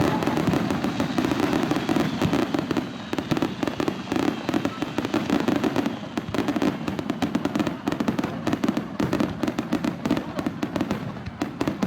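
Fireworks display: a dense, rapid run of crackling bursts and bangs from aerial fireworks.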